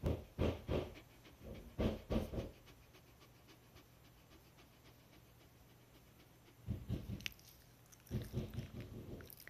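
A frightened black Shiba Inu panting quickly and evenly, broken by four louder rough bursts of a second or less.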